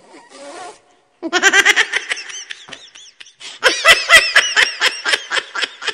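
Laughter in rapid, repeated bursts, starting about a second in, with a brief break near the middle before it picks up again.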